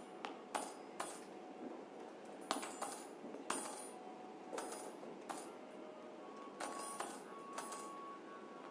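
Sparse contemporary chamber music for flute, viola and harp: about ten sharp, irregularly spaced struck clicks with a bright, high ringing tail, over faint quiet playing, with a soft held tone coming in past the middle.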